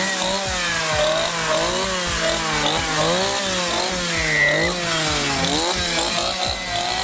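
Chainsaw engine running, its pitch rising and falling over and over as it is revved unevenly.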